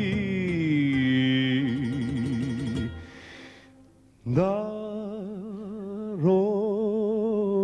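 Song music: long held melodic notes with wide vibrato, a brief lull about four seconds in, then the melody picks up again with another held note.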